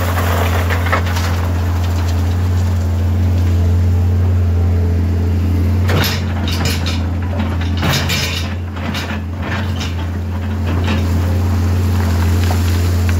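Caterpillar 320CL excavator's 3306 diesel engine running steadily under work, with a spell of clanking and clattering from about six to eleven seconds in as rock is handled.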